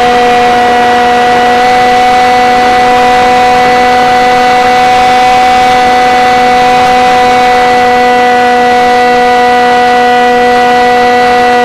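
Multiplex Shark RC airplane's motor and propeller heard from the onboard camera, a loud, steady whine of several held tones at near-constant pitch through a banking turn.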